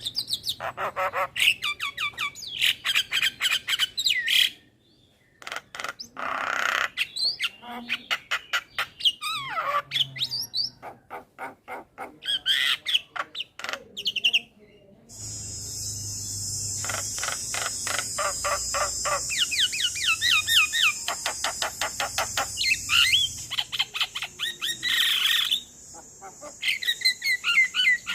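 Male Javan myna singing: fast runs of harsh, clicking chatter mixed with whistled notes, broken by short pauses. From about halfway a steady high hiss runs beneath the song.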